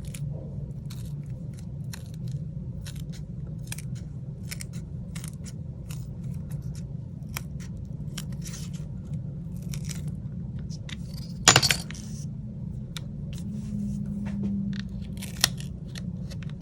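Plastic phone back cover being pried and peeled away from the frame: scattered small clicks and ticks, with one louder snap about two-thirds of the way through, over a steady low hum.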